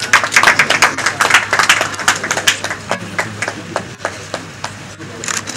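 Audience clapping: many handclaps close together at first, thinning to scattered claps after about three seconds.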